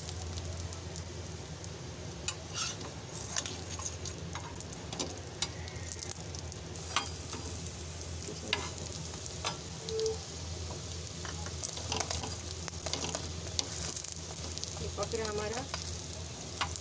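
Baida roti slow-frying in oil on a flat griddle (tawa), low enough for the egg filling to cook through. A steady sizzle with scattered small pops and crackles.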